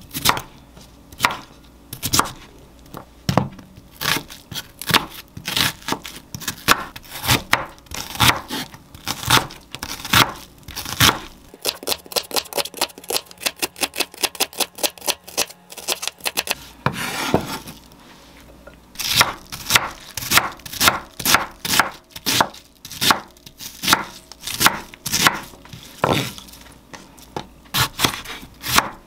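Chef's knife chopping potato and onion on a wooden cutting board: quick series of sharp knocks of the blade on the board, with a quieter break of a few seconds near the middle.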